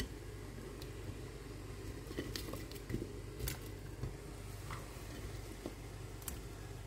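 Onion pieces tipped from a plate into a pot of hot water with fish, giving a few scattered soft plops and light clicks over a steady low hum.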